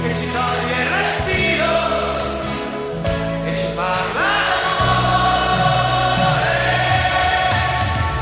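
Background music: a choir singing long, gliding notes over held bass notes and a regular percussion beat.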